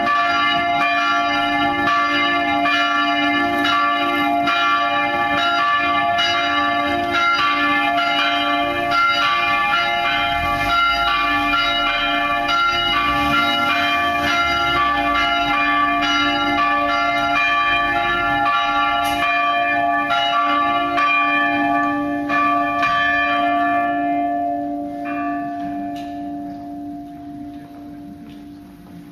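Three swinging church bells cast by Van Bergen of Heiligerlee, pealing together in a dense, overlapping clangour. A little over three-quarters of the way through, the strikes stop and the ringing dies away, with a lower hum lingering longest.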